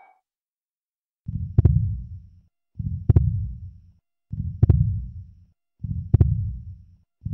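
Heartbeat sound effect: a slow pulse of low thuds, each with a sharp click, repeating about every second and a half. It starts about a second in after a brief silence.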